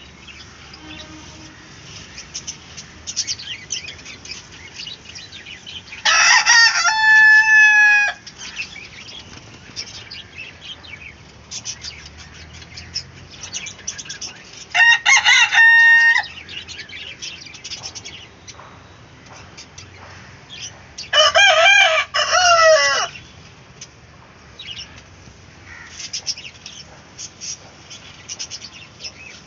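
Indian country chicken (nattu koli) rooster crowing three times, each crow about two seconds long and several seconds apart, with hens clucking and chirping in between.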